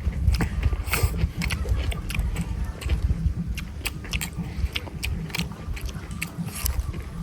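Close-up chewing and biting of pork, with frequent irregular short clicks and smacks of the mouth over a steady low rumble.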